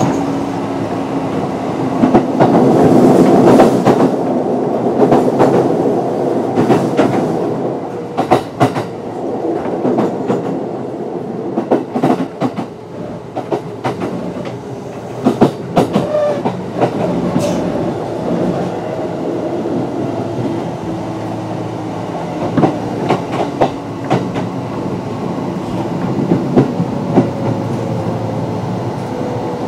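Kintetsu 8600 series electric train with resistance-controlled DC traction motors running, heard from inside the car: a steady rumble of motors and wheels with a faint whine, and bursts of sharp clicks as the wheels cross rail joints.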